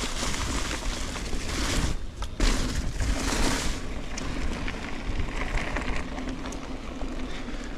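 Wind rushing over the camera microphone and the tyres of a Nukeproof Giga 290 carbon enduro mountain bike rumbling over the trail on a fast descent, with a few sharp rattles and knocks from the bike.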